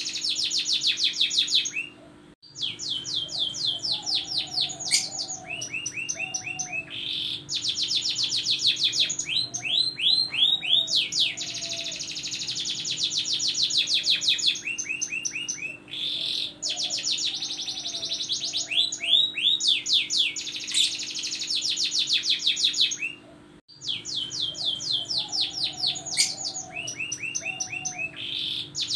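Domestic canary singing: long rolling trills of rapid repeated notes, one phrase after another, broken by two brief sudden gaps, one about two seconds in and one near the end.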